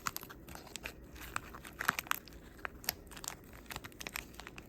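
Thin plastic packaging crinkling and tearing as it is pulled open by hand, in irregular crackles with a few louder snaps a little under halfway through.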